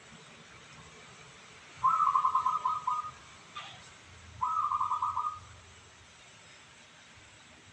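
Zebra dove (perkutut) cooing: two phrases of rapid, rolling coos, each about a second long, the second coming about a second and a half after the first. A brief click falls between them.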